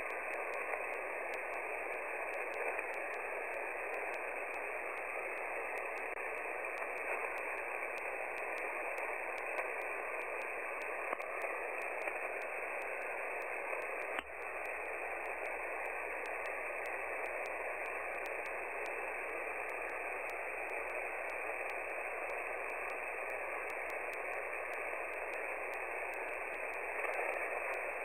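Shortwave receiver hiss and static on an idle 20-metre single-sideband amateur frequency between transmissions, squeezed into a narrow voice-band pitch range. A faint, slightly wavering whistle runs through it, and a single click comes about halfway through.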